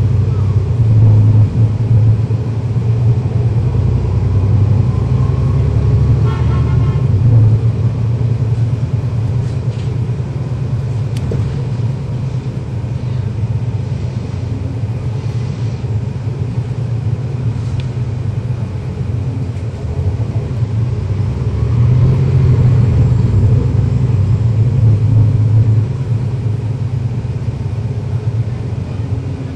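Cummins ISL9 diesel engine and ZF Ecolife 6AP-1400B automatic transmission of a 2011 NABI 40-SFW transit bus under way: a steady low engine rumble that swells twice as the bus pulls away, with a faint transmission whine rising and falling.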